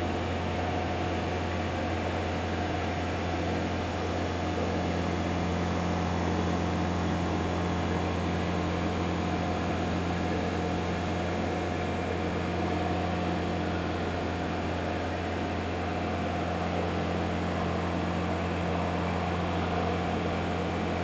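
Kitfox light airplane in cruise flight: its Jabiru engine and propeller drone steadily under a constant rush of wind noise, with no change in power.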